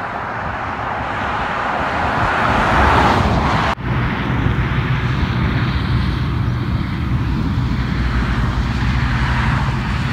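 Passing road traffic: a vehicle's noise swells to a peak about three seconds in, then, after a sudden cut, a steady low engine rumble.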